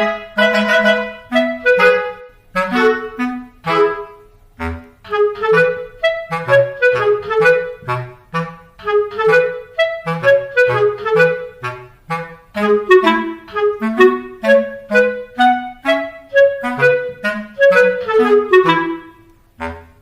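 Background music: a lively melody of short, quick notes on a woodwind-like instrument, with a few soft low thumps underneath.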